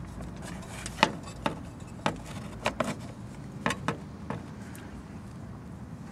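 A handful of sharp clicks and light knocks as a plastic go-kart nose fairing is handled and fitted onto its metal tube frame, over a low steady hum.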